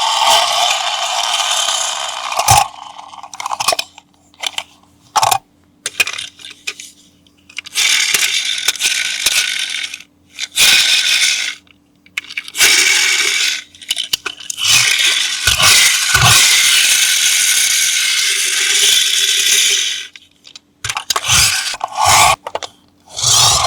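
Unboxing handling of a toy and its packaging: stop-start bursts of rustling and scraping, broken by sharp clicks and knocks, with short pauses between.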